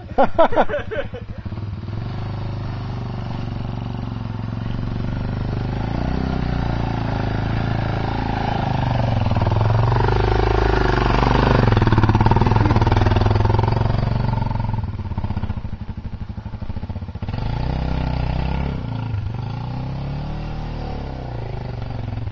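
Dirt bike engine running on the trail. Its revs rise to a peak about ten to thirteen seconds in, drop back to a pulsing low-rev note around fifteen seconds, then pick up again.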